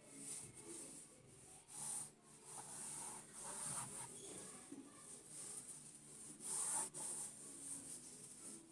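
Wet wipe rubbing and scrubbing over the grimy surface of a microwave oven in uneven strokes, the strongest about two seconds in and again near the end.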